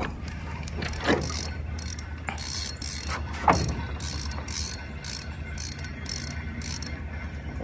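Fishing reel ratcheting and clicking while a big hooked fish is being played, with two sharper, louder strokes about a second in and about three and a half seconds in.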